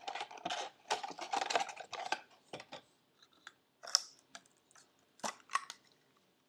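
Crinkling and rustling of plastic packaging being handled for about two seconds, followed by four or five separate sharp clicks or snips.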